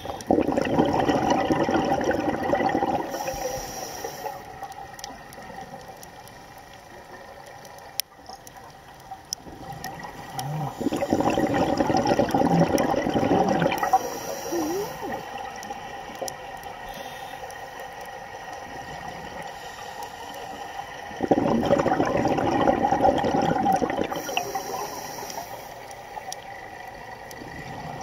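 Scuba diver breathing through a regulator underwater: three long bursts of exhaled bubbles about ten seconds apart, with a fainter hiss between them.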